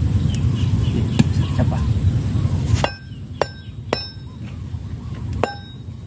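A hand blade chopping and scraping into hard, dry soil and clods, giving about four sharp knocks in the second half. Before them a steady low rumble runs and cuts off about three seconds in.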